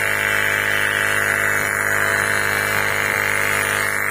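Portable 12V tire inflator's electric air compressor running with a steady hum, pumping air into a motorcycle tire that reads zero pressure.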